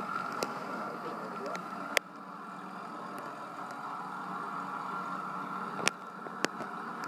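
Old farm tractors driving past on a highway, their engines a steady drone heard through a television's small speaker, with several sharp clicks, the loudest about two seconds in and another near six seconds.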